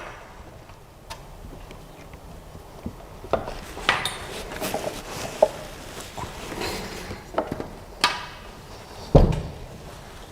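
Hands handling the printer's accessories and tools: scattered clicks, clinks and knocks of small hard parts at irregular intervals, with a heavier thump about nine seconds in.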